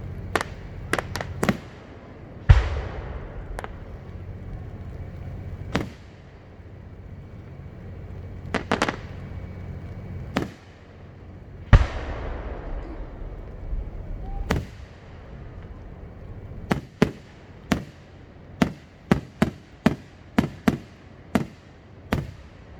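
Aerial fireworks display: scattered sharp bangs and two heavy booms with long crackling tails, then a fast run of about a dozen bangs near the end.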